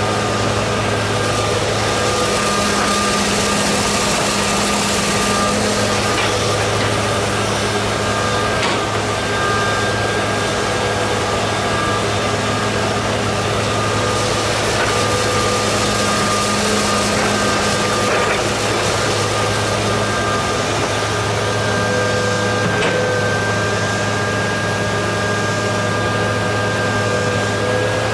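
John Deere 200C LC excavator's diesel engine running steadily as the boom and bucket work dirt, a constant hum with a steady whine over it and a few faint knocks.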